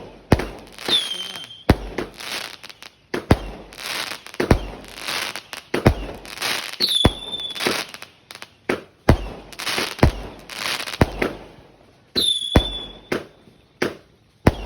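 A 50-shot, 0.8-inch consumer fireworks cake firing: a string of sharp booms about one or two a second, each trailing off in a hiss. Three times a short whistle falls in pitch.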